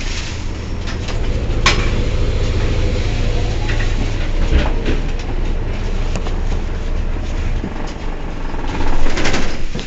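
Mercedes-Benz O 405 N city bus running with a steady low engine and road rumble. There is a sharp click a little under two seconds in, and a louder rushing burst near the end.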